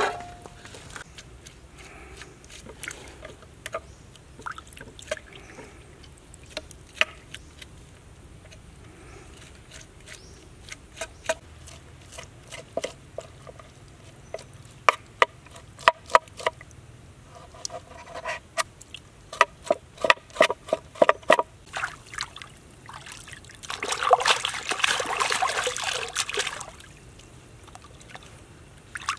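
A kitchen knife knocking on a wooden cutting board as fish flesh is cut: scattered taps, then a run of quick chops at about three a second through the middle. Near the end comes a few seconds of water splashing as the fish is rinsed by hand.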